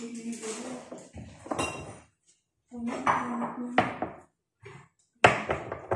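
Dishes and utensils clattering as they are handled on a kitchen counter: a series of sharp clinks and knocks, one of them followed by a brief metallic ring about a second and a half in.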